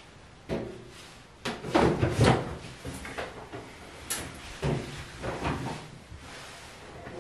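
Knocks and clunks of laundry being handled at a washer and dryer: a dryer's lint screen and the appliance doors and lid knocked about. A run of separate clunks, the loudest cluster about two seconds in, and a sharp click about four seconds in.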